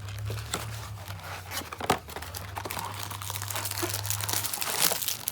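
Cardboard Pop-Tarts box being torn open by hand, with irregular tearing and crinkling of packaging and a few sharper snaps.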